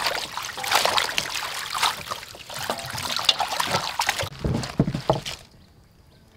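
Water splashing and sloshing as hands scrub leafy greens in a stainless-steel basin of water. The splashing stops about five and a half seconds in.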